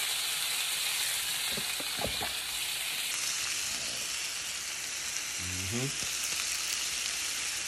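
Diced raw chicken frying in a hot nonstick skillet: a steady sizzling hiss, with a couple of light knocks about two seconds in.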